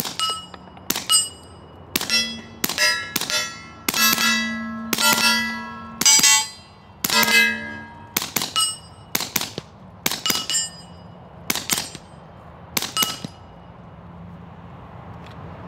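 A long string of suppressed 9mm shots from a Smith & Wesson FPC carbine fitted with a Griffin Revolution 45 suppressor, fired at an uneven pace. Many shots are followed by steel targets ringing. The firing stops about 13 seconds in.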